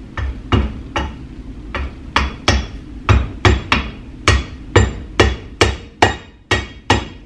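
Hammer tapping new seals into a metal Vortec 5.3 valley cover held in a bench vise: a run of sharp metallic strikes, each with a brief ring. They come about two a second at first and speed up to about three a second.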